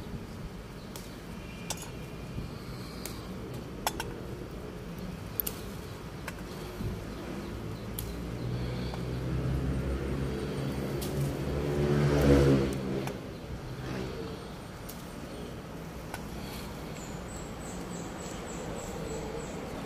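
A motor vehicle's engine passing by, growing louder to a peak about twelve seconds in and then fading away. A few light clicks are scattered through it, and there is a quick run of high ticks near the end.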